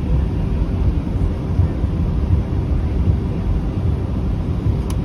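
Airbus A320 cabin noise while taxiing: a steady low rumble from the IAE V2527-A5 engines at low thrust and the wheels rolling over the taxiway, with a short click near the end.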